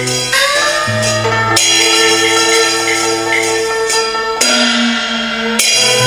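Instrumental passage of a Cantonese opera song's accompaniment, played by a mixed Chinese and Western band. Held notes slide upward about half a second in, then the harmony shifts a few times, over light regular percussion ticks.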